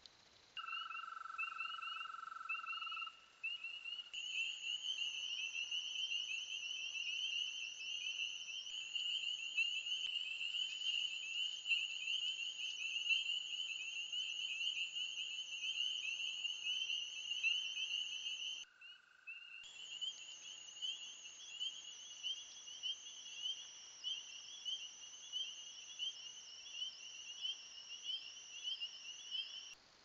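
Dense chorus of many frogs calling, a constant high-pitched pulsing peeping. A lower steady trill runs under it for the first few seconds, and the chorus drops out for about a second two-thirds of the way through.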